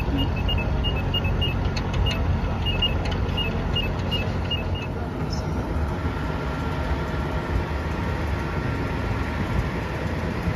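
Road traffic passing at an intersection, with a pedestrian crossing signal beeping steadily a few times a second; the beeping stops about halfway through while the traffic carries on.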